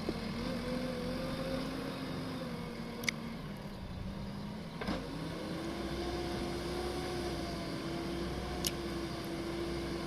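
Heavy diesel engine running under working load. Its pitch sags slightly, then rises quickly about five seconds in and holds at higher revs. A few sharp clicks or knocks sound over it.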